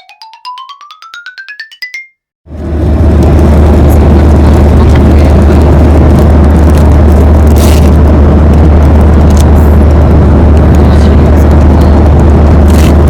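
A quick rising run of short electronic beeps, then from about two and a half seconds in a very loud, steady rumble with a strong low hum: jet airliner cabin noise in flight.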